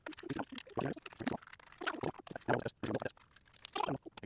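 Plastic toy truck parts being handled and fitted together on a table: a run of short, irregular clatters, scrapes and squeaks, several a second.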